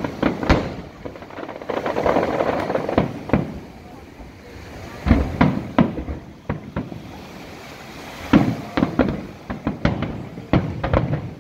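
Aerial firework shells bursting, a string of sharp bangs that come in bunches, around five seconds in and again from about eight seconds on.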